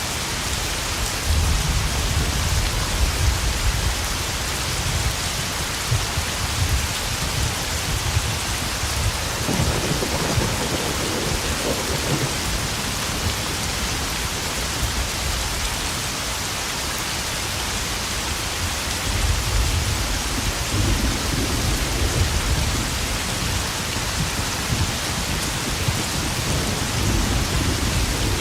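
Steady spring rain pattering on puddles, with long low rolls of thunder. One rumble runs through the first third, and another starts about two-thirds of the way in and lasts to the end.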